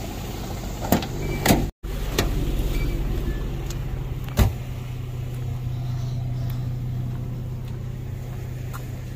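Pickup truck engine idling with a steady low hum. A few light clicks come early, the sound cuts out for an instant just under two seconds in, and there is one sharp knock about four and a half seconds in.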